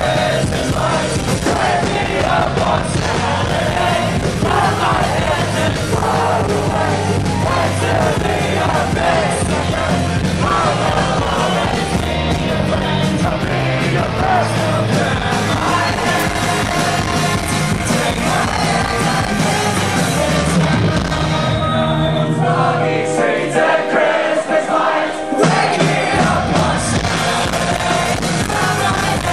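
A rock band playing live with electric guitars, keyboard, drums and singing, recorded through a camcorder's microphone in the audience. About three quarters of the way through, the bass and drums drop out for a few seconds and then the full band comes back in.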